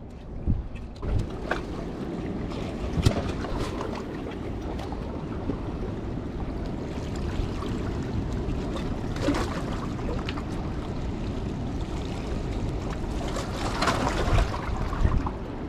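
Wind buffeting the microphone over the wash of sea water against shore rocks, with a few sharp knocks.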